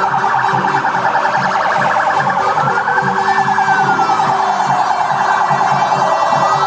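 A siren wailing, its pitch slowly rising and falling in a cycle of about four seconds, over a loud, dense background with a steady low beat.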